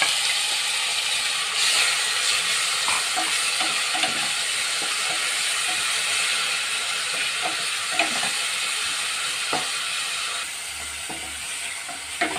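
Ground onion and red chilli paste sizzling as it fries in hot mustard oil in a hard-anodised kadai, stirred with a wooden spatula that scrapes and taps the pan now and then. The sizzle eases a little near the end.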